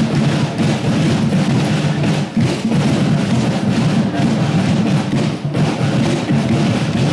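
Loud, continuous music with drums and percussion.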